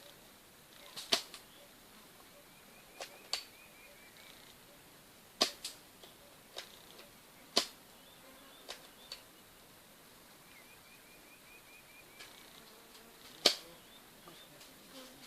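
Airsoft guns firing single shots: about ten sharp pops at irregular intervals, some of them in quick pairs. Two short runs of rapid repeated chirps, likely a bird, sound in between.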